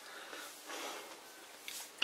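Quiet room tone with a soft breath, and a faint click near the end.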